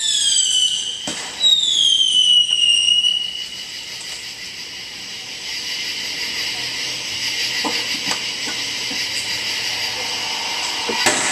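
Whistling fireworks: two shrill whistles, each falling in pitch over a second or so, in the first three seconds. A steady hiss with a few faint pops follows, and sharp crackling pops start near the end.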